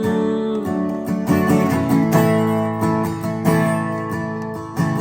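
Acoustic guitar strumming sustained chords, changing chord every second or so, as the instrumental accompaniment to a worship song between sung lines.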